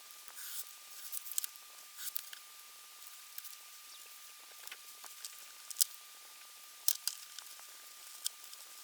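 Scattered light taps and clicks of small pieces and tools being handled on a workbench, with a faint steady high-pitched tone underneath.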